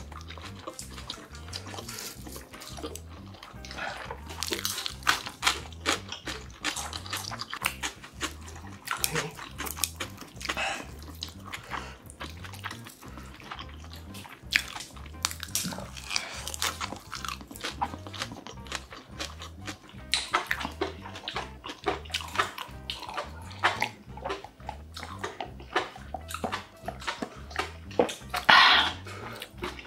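Close-miked eating: wet chewing and slurping of enoki mushrooms in spicy buldak sauce, with many short irregular smacks and clicks, over quiet background music. Near the end, a swallow of beer.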